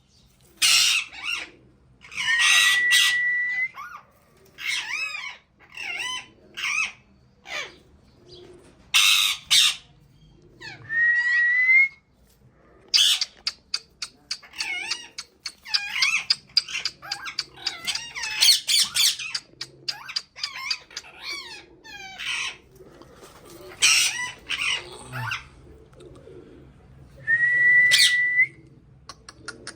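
Pet parrot calling in a long series of harsh squawks and wavering chirps, with a clear whistle held at one pitch three times.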